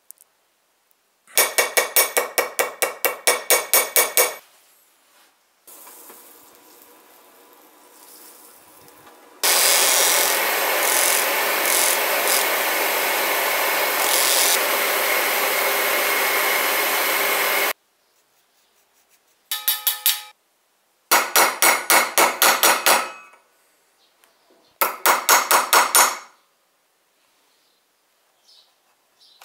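Bursts of quick, ringing hand-tool strokes on brass, about four a second. In the middle, a bench polishing motor's buffing wheel runs steadily for about eight seconds with a curved brass piece held against it, then cuts off suddenly.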